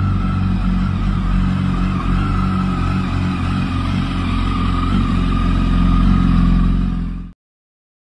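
Yamaha YZF-R1 (RN19) inline-four engine with a Dominator aftermarket exhaust, idling steadily. It swells slightly about six seconds in, then cuts off suddenly a little after seven seconds.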